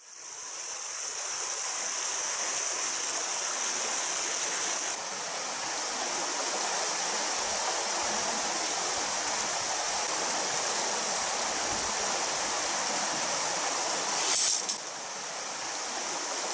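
Shallow rocky stream running over stones, a steady rushing water noise. About fourteen seconds in there is a brief, louder noise.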